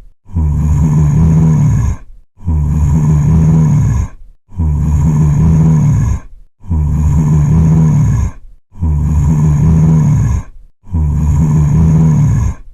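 Zombie growl sound effect: the same low, rasping groan about two seconds long, repeated six times with a short break between repeats.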